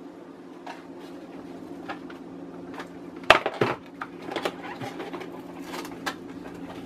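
Things being handled on a kitchen counter: one sharp knock about three seconds in, followed by scattered small clicks and rustles, over a steady low hum.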